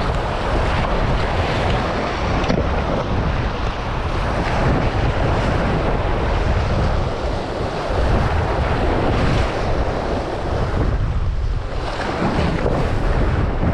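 Wind buffeting the microphone over the wash of waves against jetty rocks, a continuous rough rumbling noise.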